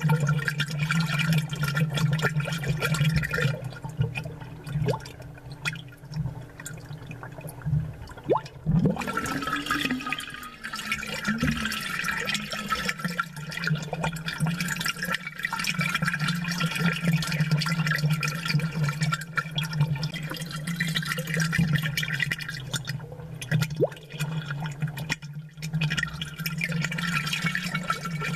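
Aquarium water bubbling, a dense crackle of air bubbles breaking at the surface over a steady low hum, with a few gurgles about a third of the way in.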